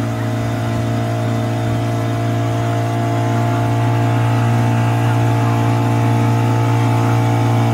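Outboard motor of an open passenger boat running steadily at cruising speed, a loud even hum that holds one pitch.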